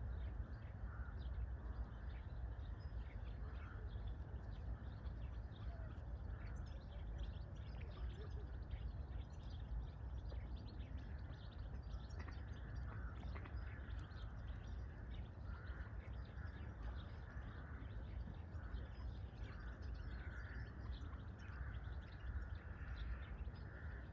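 Dawn bird chorus: many birds chirping and calling at once, short rapid notes throughout, over a steady low background rumble.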